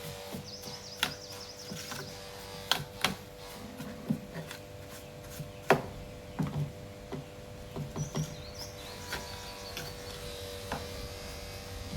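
Scattered clicks and taps of small hard objects being handled, over a steady electrical hum, with birds chirping in the background twice.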